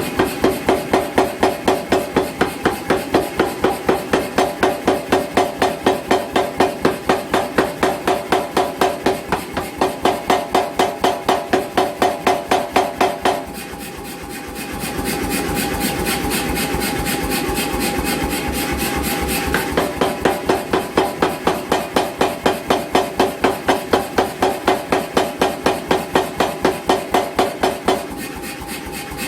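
88 lb C41 self-contained air power hammer striking hot steel in a fast, even run of blows, about three or four a second. It stops striking twice and runs on with a steady mechanical hum in between.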